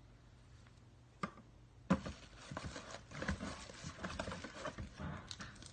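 Hands rummaging in a cardboard box and its packaging: two sharp knocks, then from about two seconds in a busy run of irregular taps, scrapes and rustles as an item is pulled out.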